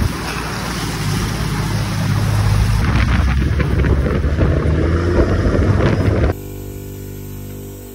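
Toyota LandCruiser Troop Carrier driving through shallow creek water and on along the beach sand: a steady engine drone under heavy wind buffeting on an outside-mounted microphone, with water splashing off the tyres. About six seconds in the sound drops suddenly to a quieter, steady hum.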